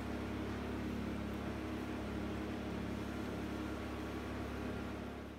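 Steady machine hum with several low tones from a diode laser hair removal machine's cooling system running at its maximum setting. It fades out near the end.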